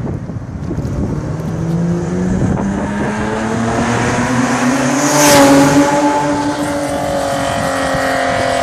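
Porsche 911SC's air-cooled flat-six accelerating hard past under a concrete overpass. The engine note climbs as the car approaches, is loudest as it passes about five seconds in, then falls slightly as it pulls away.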